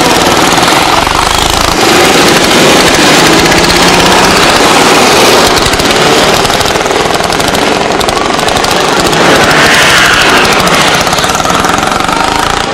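A procession of motorcycles riding past one after another, their engines running loudly and continuously.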